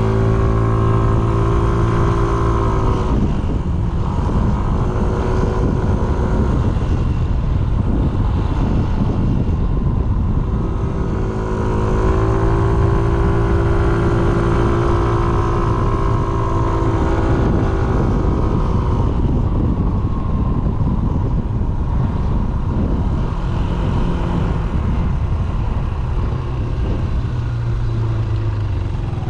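Yamaha SMAX 155 maxi-scooter's single-cylinder engine running at road speed, with wind and road noise. The engine note swells at the start and again about halfway through, then eases off.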